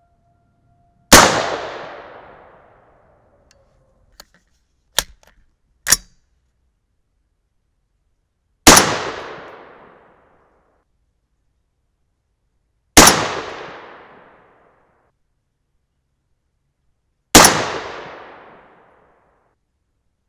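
Four shots from a .223 AR-15 rifle, several seconds apart, each a sharp crack trailed by an echo that dies away over about a second and a half. Between the first and second shots come three short, sharp clicks.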